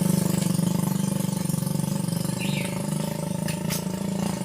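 A vehicle engine running at steady low revs, a loud, even, pulsing drone that eases off slightly toward the end.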